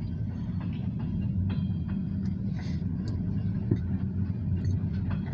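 Freight train's grain hopper and tank cars rolling past: a steady low rumble with scattered clicks from the wheels.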